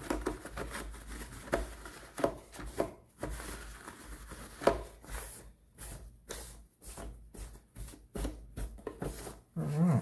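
Paper towel crinkling and rubbing as it wipes the plastic underside of a Roomba robot vacuum, with a few light knocks from handling the housing.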